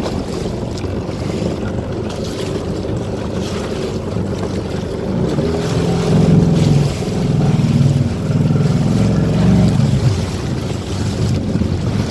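Wind buffeting the microphone over water rushing and splashing around a small sailing dinghy under way. The buffeting grows louder and gustier about halfway through.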